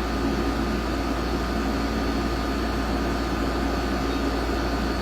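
Steady low machine hum with a faint constant whine, unchanging throughout.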